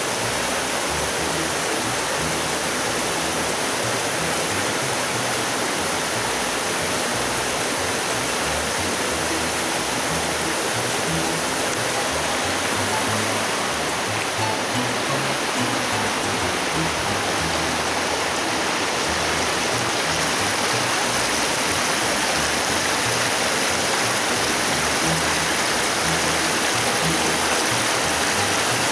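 Steady rushing of a small waterfall and a creek running over rocks.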